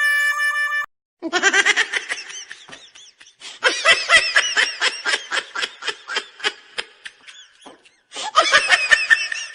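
Laughter in quick, high-pitched bursts, in three runs with short pauses between them.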